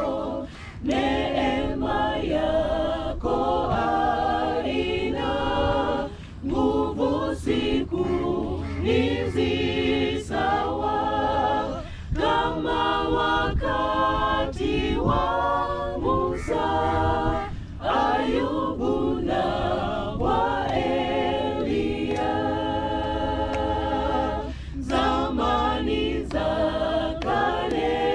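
A cappella choir singing, voices only with no instruments, a continuous song with brief pauses between phrases.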